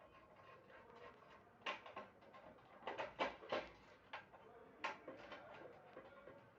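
Irregular light clicks, knocks and clinks of hard parts being handled, thickest around the middle. It fits the parts and fittings of a sewing machine being set out and put together.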